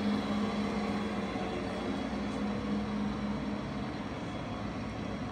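Steady machinery hum: one low, even tone over a haze of mechanical noise.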